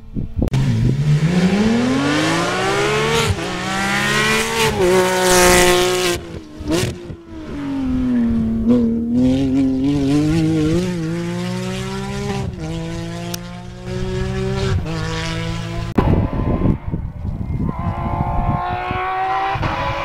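Rally car engine at full throttle, its pitch climbing and dropping back at each upshift, falling as it slows around the middle, then climbing through the gears again. After a sudden change about three-quarters of the way in, a rougher, less distinct engine sound follows.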